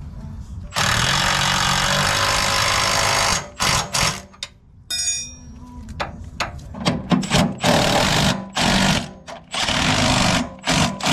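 Cordless impact wrench hammering a bolt tight on the traction bar mount: one run of about two and a half seconds starting about a second in, then a series of short bursts through the second half.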